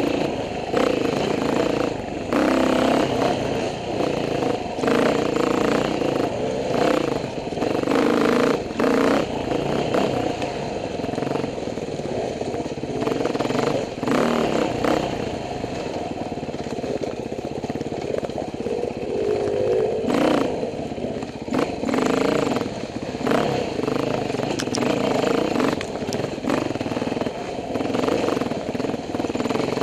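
Dirt bike engine running close by, revving up and down at trail pace, with frequent knocks and clatter as the bike jolts over the rough trail.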